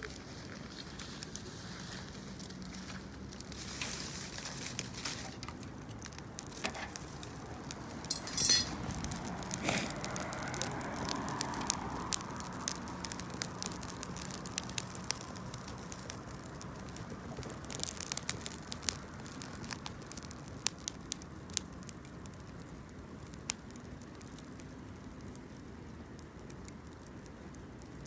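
Wood campfire crackling, with many sharp pops and snaps scattered throughout and one louder snap about eight seconds in.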